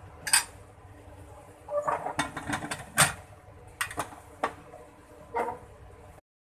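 Aluminium pressure cooker lid being handled and fitted onto the cooker to close it: a series of metal clanks and scrapes, the loudest about three seconds in.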